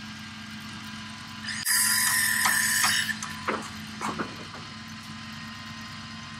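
Boom truck running with a steady low hum while a loud, harsh rasping mechanical noise sounds for about a second and a half near the middle, followed by a few short falling squeaks.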